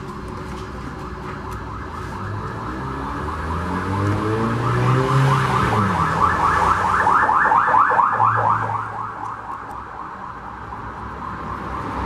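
Philco PH900 blender's burnt-out motor powered and struggling: a hum that rises and then falls in pitch, with a rhythmic buzzing rasp that grows louder and quickens before dropping away about two-thirds of the way through. The motor barely turns because its armature and field windings are burnt.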